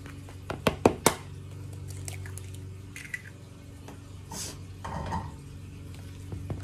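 A raw egg knocked sharply several times against the rim of a mixing bowl to crack it, the knocks coming close together about a second in, followed by softer handling noises over the bowl. A steady low hum runs underneath.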